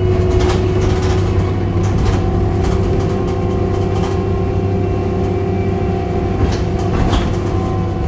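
Volvo B7RLE single-deck bus heard from inside while under way: a steady groaning drone of several held tones over the running rumble. Sharp rattles from the body and fittings come now and then, clustered in the first half and again about six to seven seconds in.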